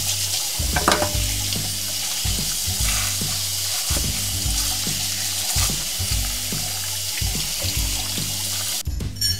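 Tap water running in a steady stream onto a dongchimi radish as it is washed under the faucet over a stainless steel bowl. The water sound cuts off abruptly near the end.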